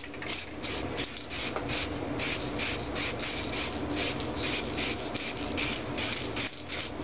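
Aerosol can of engine paint spraying in a rapid series of short hisses, about four a second, as paint is laid onto a bare aluminium engine block.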